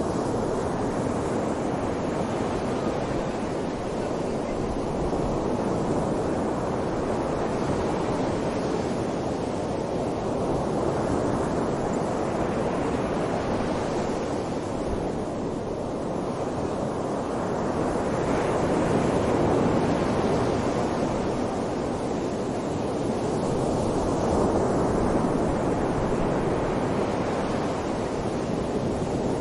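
Strong wind blowing in a snowstorm, a steady rushing that swells and eases in slow gusts.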